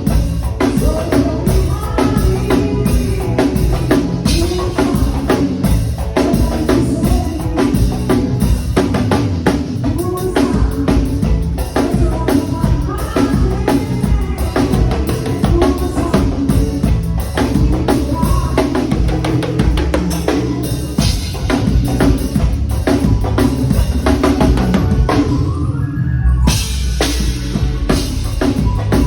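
Live band playing during a soundcheck, led by the drum kit: bass drum, snare and rimshots keeping a steady groove while pitched melody lines from the other instruments or a voice move over it. Everything briefly drops out near the end before the groove comes back in.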